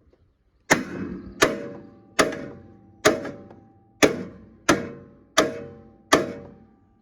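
A hammer striking a steel part eight times at an even pace, about one blow every three-quarters of a second, each blow ringing briefly.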